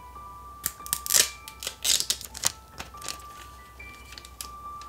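Thin plastic film sheets from an LCD monitor's backlight layers crackling and crinkling as they are handled and peeled apart, a quick run of sharp crackles in the first half. Soft background music with sustained notes plays underneath.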